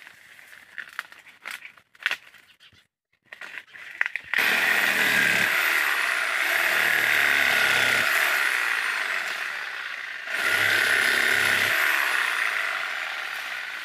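Dry date palm fronds crackling as they are handled, then about four seconds in a handheld power saw starts cutting the dry palm wood: a loud, steady run with a high whine that sags in pitch as the blade bites and springs back up. The machine drops off briefly about ten seconds in, then cuts again.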